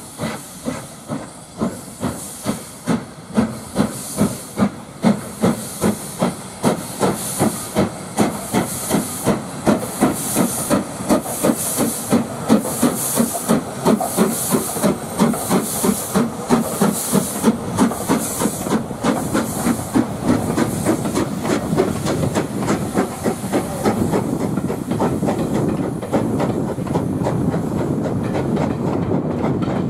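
LNER B12 4-6-0 steam locomotive no 8572 pulling away with a train, its exhaust beats quickening from about two to three a second, each with a hiss of steam. After about twenty seconds the beats blur into the steady rumble and clatter of the coaches rolling past.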